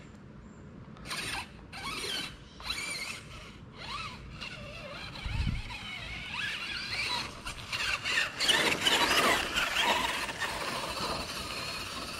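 Traxxas E-Maxx 3906 RC monster truck with a 775 brushed can motor on 4S. Its all-steel transmission and steel spur and pinion gears whine, rising and falling with the throttle: short bursts at first, then longer and louder runs in the second half.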